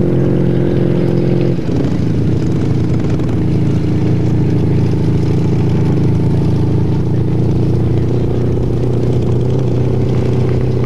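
Motor vehicle engine running steadily and close by, its note changing about a second and a half in.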